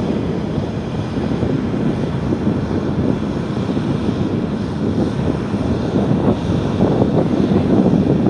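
Airliner's jet engines at takeoff thrust: a loud, crackling rumble that grows slightly louder near the end.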